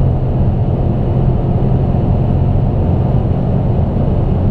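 2014 Dodge Charger SRT8's 6.4-litre HEMI V8 running hard at high speed: a steady, loud, low drone that holds its pitch.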